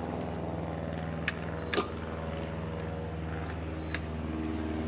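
Vintage Canedy-Otto drill press running on its VFD-fed three-phase motor with a steady hum. Rotary selector switches on its control box click three times, and a higher hum joins near the end.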